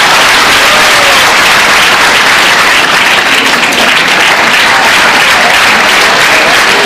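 Loud applause from a seated audience, many hands clapping at once.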